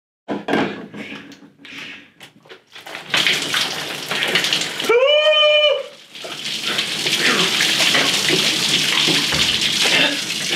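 White liquid poured over a man's head, splashing down onto him and into a bathtub; the steady splashing starts about three seconds in. A loud yell of about a second cuts through it about five seconds in.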